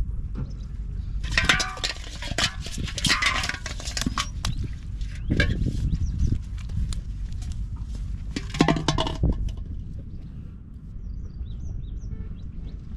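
Aluminium cooking pot handled and tipped on a muddy bank: clinks and rattles with water sloshing inside, in three bursts, the first and longest from about a second in to about four seconds. A steady low rumble lies underneath throughout.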